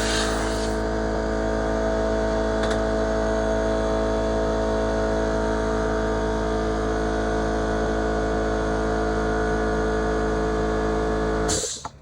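Electric air compressor running with a steady motor-and-pump drone, then shutting off abruptly near the end. A blast of compressed air from the blow nozzle stops within the first second.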